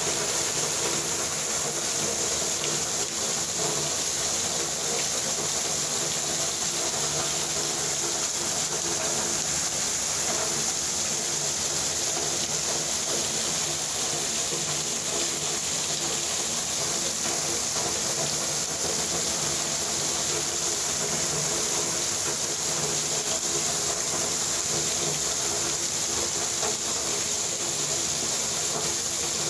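Heavy rain pouring steadily, with water streaming off the roof edge and splashing into puddles on the flooded patio. A faint steady hum runs underneath.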